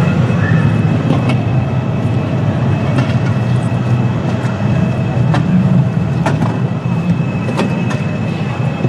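Steady low rumbling din of a crowded exhibition hall, with a few short sharp clicks scattered through it.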